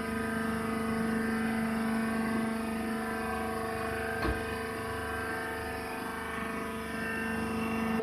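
Hydraulic baler's power unit, an electric motor and pump, running with a steady hum, with one light click about four seconds in.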